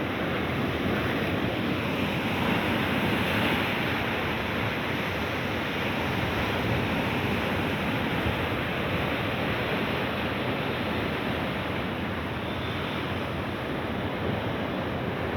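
Sea waves washing ashore in a steady rush of surf, with some wind on the microphone.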